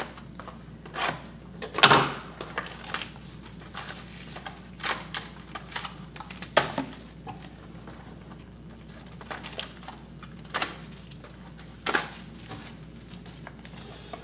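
Trading-card packaging being handled on a tabletop: cardboard box and foil-wrapped packs knocked, tapped and rustled in irregular clicks and thumps, the loudest about two seconds in.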